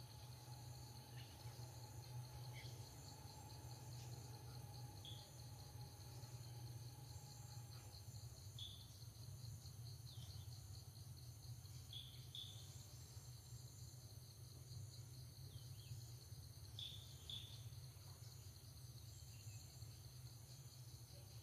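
Faint outdoor ambience: a steady, finely pulsing insect trill over a low hum, with a few short high chirps, some in pairs, scattered through it.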